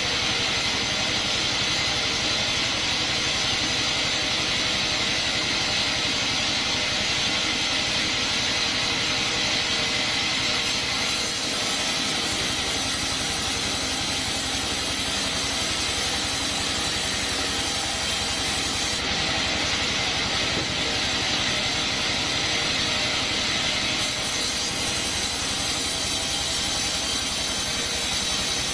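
Sawmill band saw running and cutting through coconut wood: a loud, steady, continuous machine noise that hardly changes.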